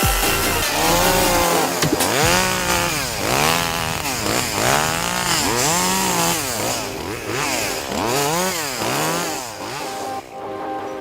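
Echo CS-2511WES top-handle pruning chainsaw's 25 cc two-stroke engine running, its speed rising and falling again and again, about once a second.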